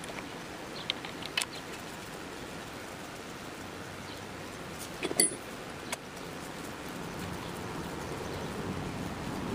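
Scattered small metal clicks and clinks from a hand tool and fittings as the shift lever and foot peg are bolted back onto a motorcycle. The loudest is a quick cluster of clinks about five seconds in, over a steady background hiss.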